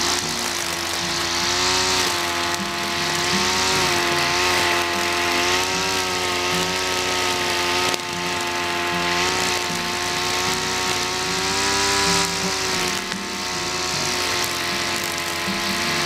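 Engine-driven brush cutter with a nylon-line trimmer head running at high speed, its pitch wavering up and down as the line cuts through tall grass.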